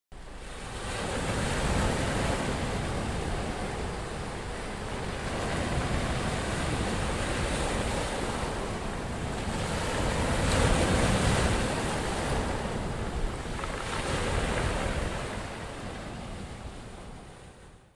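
Sea waves washing onto a shore, swelling and falling back about every four seconds, fading out near the end.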